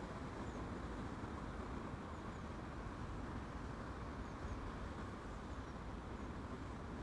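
Steady outdoor background noise, an even low rumble and hiss, with faint high chirps now and then.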